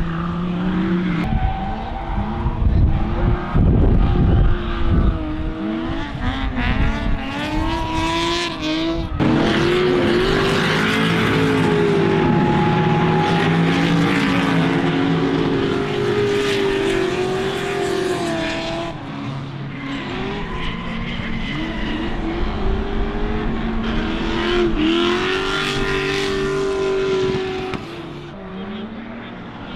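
Drift cars sliding through a corner: engines revving up and down in wavering pitch over tyre squeal, loudest through the middle stretch.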